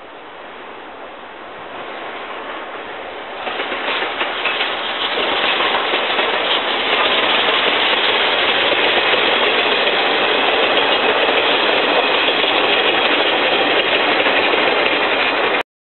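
Double-headed steam train, the tank locomotives C11 325 and C12 66 hauling passenger coaches, passing with its wheels rumbling and clattering over the rails. It grows louder about three to four seconds in, stays loud, and cuts off abruptly just before the end.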